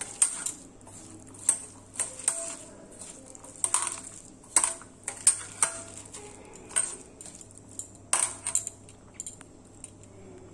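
A hand squeezing and mixing a shredded chicken, onion and spice mixture in a stainless steel bowl, with sharp, irregular metallic clinks as the bangles on the wrist knock against the bowl. The clinks thin out near the end.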